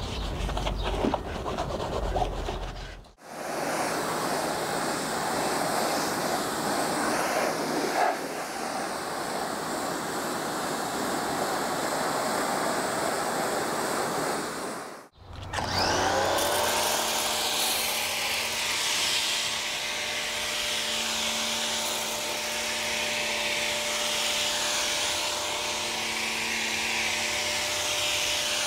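A wash mitt scrubbing a foamed truck running board, then the hiss of a Stanley pressure washer spray rinsing off the soap. About halfway through, the pressure washer motor starts with a whine that rises briefly, then holds steady under the hiss of the spray.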